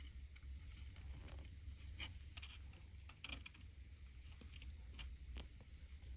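Faint, scattered ticks and scratches of fingernails and fingertips bending thin silver-plated copper wire against a rose quartz cabochon, over a low steady hum.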